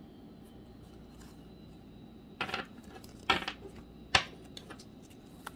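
Handling of stiff, brand-new playing cards: three sharp snapping clicks about a second apart as cards are slid and flicked from the face of the deck, with a few lighter ticks around them.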